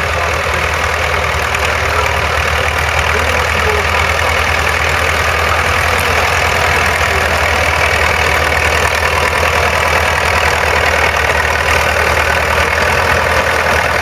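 Crawler tractor engine running steadily with a low, even drone.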